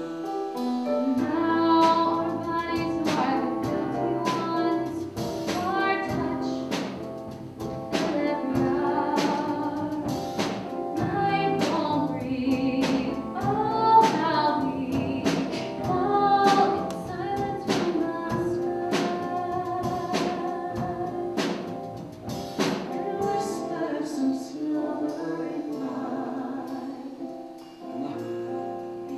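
A woman singing a song from the musical over instrumental accompaniment with a steady beat.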